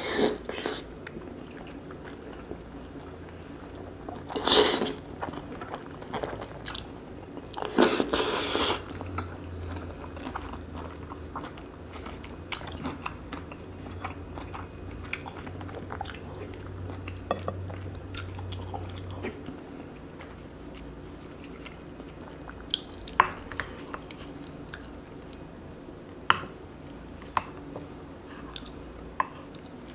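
Close-miked chewing and biting of braised pork belly, kimchi and rice, with a few louder noisy bursts in the first ten seconds and short sharp clicks scattered through the rest.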